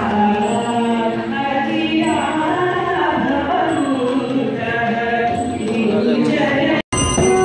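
A group of voices chanting a devotional hymn together, the melody rising and falling. Near the end it breaks off abruptly.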